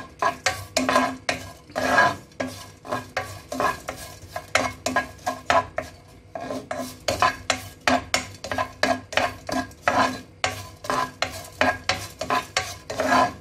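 Spatula scraping and knocking against a nonstick pan in quick repeated strokes, about two a second, as small pieces of asafoetida are stirred and dry-roasted.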